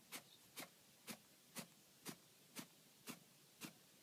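Near silence with faint, regular ticks, about two a second.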